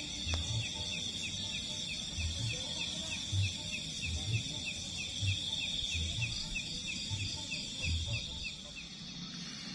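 Night insects: a steady high drone with a fast regular series of short chirps, about three a second. Soft low thumps come at irregular intervals underneath.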